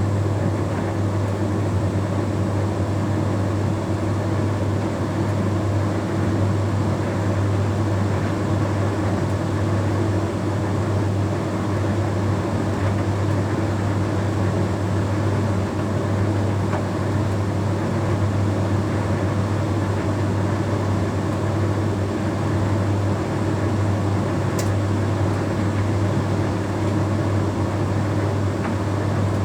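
Bosch Series 6 heat pump tumble dryer running steadily, a constant machine hum with a strong low drone.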